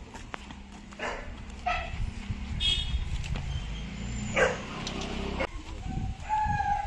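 Dogs barking, a few short barks spread through, with a longer held whine near the end.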